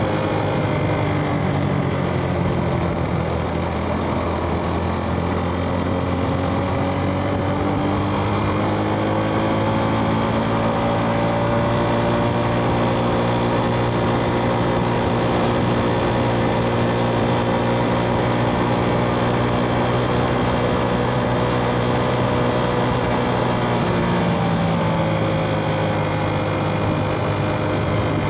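Suzuki Smash motorcycle engine running under way, its note easing off around two to four seconds in, climbing again from about eight seconds, then dropping around twenty-four seconds before picking up once more.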